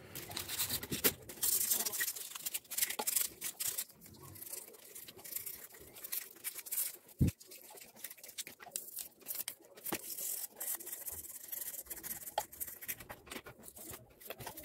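Small bristle brush scrubbing the dirty EGR valve of a Renault 1.5 dCi K9K diesel: a run of irregular short scratchy strokes, with a single knock about seven seconds in.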